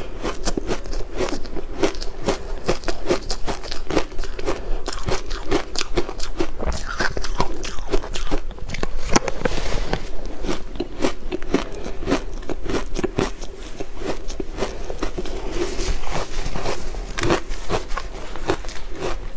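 Frozen shaved ice crunching as it is bitten from the mound and chewed, close to the microphone: a dense run of crisp crunches and crackles, one after another.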